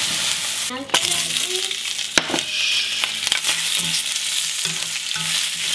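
Vegetables sizzling in a hot cast iron skillet, with sharp clicks from metal tongs against the pan as they are turned, several times.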